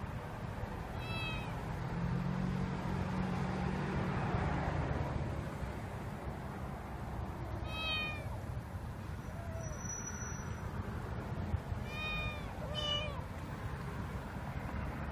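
Stray kitten mewing: four short, high-pitched mews, one about a second in, one near the middle and two in quick succession near the end.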